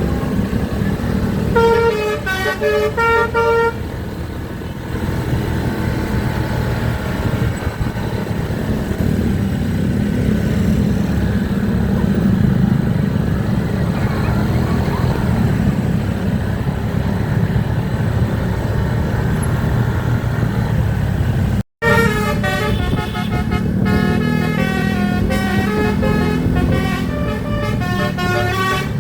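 Basuri telolet bus horn playing a quick multi-note tune, briefly about two seconds in and again for several seconds near the end, over the steady running of the bus engine and road noise.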